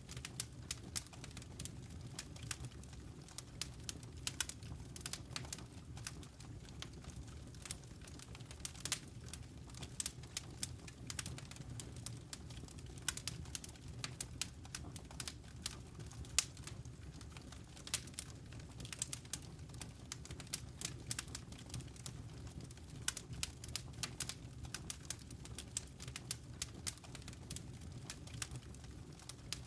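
Fire crackling in a fireplace: dense, irregular snaps and pops over a low, steady rumble of flames.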